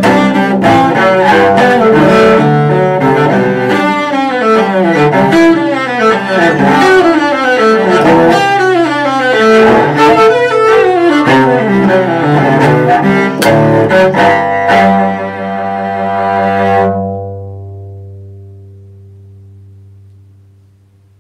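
Solo cello bowed in quick, busy passages, ending about fifteen seconds in on a held final note that then rings away and fades over the last few seconds.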